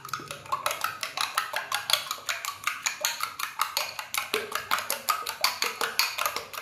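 Eggs being beaten in a bowl by hand: the utensil clicks rapidly and evenly against the bowl, about five or six strokes a second.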